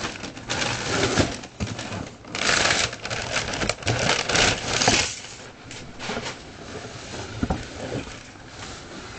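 A cardboard shoebox being opened and the paper inside rustled and handled, loudest in the first half, then quieter handling with a few light knocks.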